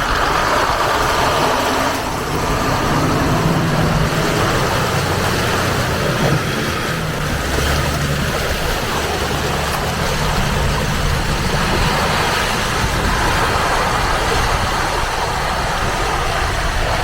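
Toyota Land Cruiser 105's engine running steadily as the 4x4 drives off-road, with the rumble of the vehicle moving over rough ground.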